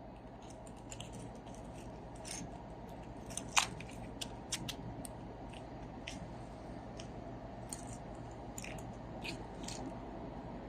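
Light metal clicks and ticks as an anti-rattle spring is pushed into its hole in a new rear brake pad and pressed until it seats, with one sharper click about three and a half seconds in, over a faint steady hum.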